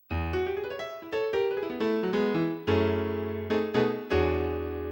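A short keyboard jingle with a piano sound: a quick run of notes, then two held chords, the last one ringing on and slowly fading.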